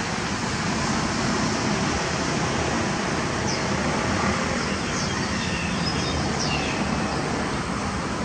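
Steady road traffic noise, with a few faint, short high bird chirps in the second half.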